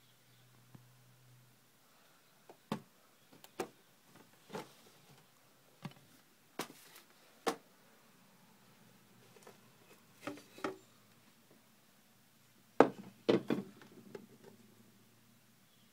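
A scattered series of light knocks and taps, about a dozen, irregularly spaced, with a louder cluster near the end.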